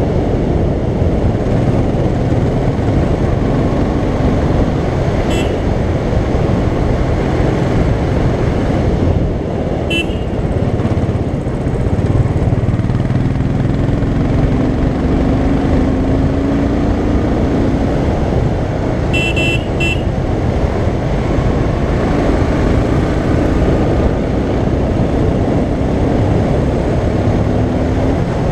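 Royal Enfield Continental GT 535's single-cylinder engine running at speed under heavy wind rush, its pitch rising and falling with the throttle through the corners. A few brief sharp high sounds about 5, 10 and 19 seconds in.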